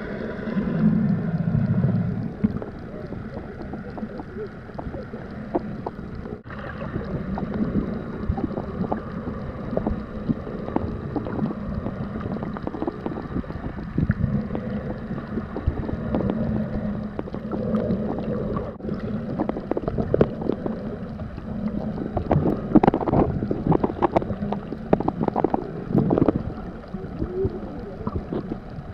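Sea water sloshing and gurgling, with many small splashes and clicks throughout and a cluster of louder splashes about three quarters of the way through.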